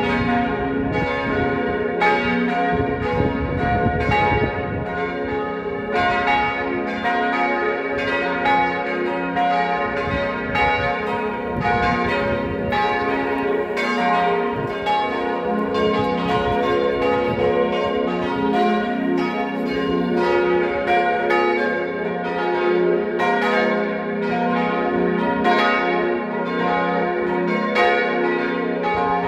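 Four swinging church bells, tuned to C, B-flat, A-flat and F, ringing together in a full peal, their strikes overlapping steadily.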